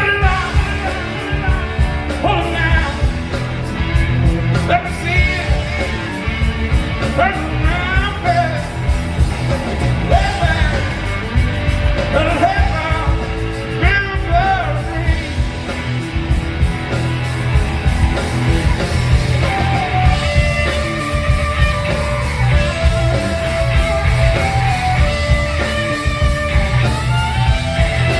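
Rock music: a singing voice over guitar and a steady beat, with held guitar notes coming to the fore in the second half.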